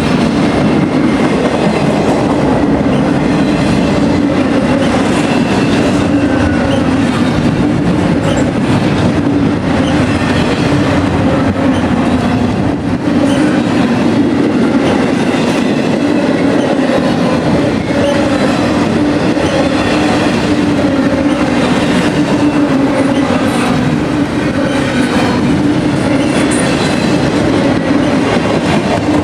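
CSX freight train's cars rolling past, a steady loud rumble of steel wheels on the rails.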